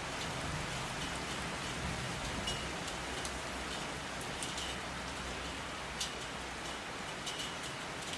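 Steady rain falling, a dense even hiss with individual drops now and then striking a surface in sharp clicks.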